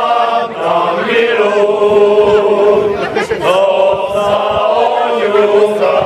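A group of men singing a Moravian folk song together without accompaniment, several voices in harmony with long held notes and a short breath between phrases about halfway through.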